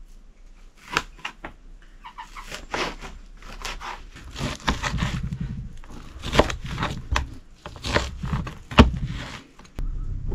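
Meat cleaver chopping pork on a plastic cutting board over a wooden table: a series of sharp, irregular knocks, one or two a second, the hardest chop near the end.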